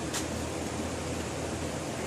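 Steady background hiss with a low hum: the room's own noise, with one faint click just after the start.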